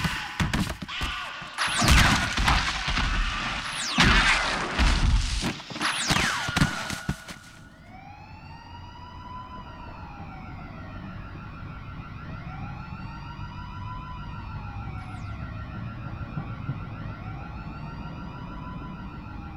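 Loud crashing and smashing impacts with sharp falling whooshes. Then, from about eight seconds in, a siren wails slowly up and down, each rise and fall taking about four seconds, over a steady held tone.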